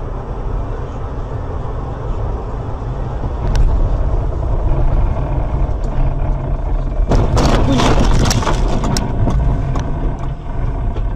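Dashcam recording of a car driving on a wintry highway: a steady low road and engine rumble inside the cabin. About seven seconds in comes a loud burst of crunching knocks and scraping lasting a couple of seconds, the sound of a collision.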